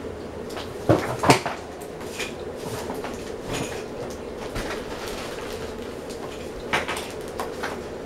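Hunter Silent Breeze ceiling fan running on high speed with a steady hum, broken by a few sharp clacks: two close together about a second in and another near the end.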